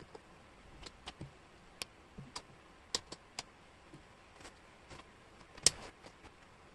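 Wooden jigsaw puzzle pieces clicking and tapping on a tabletop as they are picked up, shifted and fitted together, in irregular light clicks with a louder knock a little before the end.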